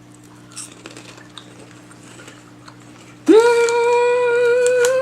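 A woman's long, steady "mmm" hum of enjoyment while eating, starting about three seconds in and held at one pitch. Before it there are only faint small clicks over a steady low electrical hum.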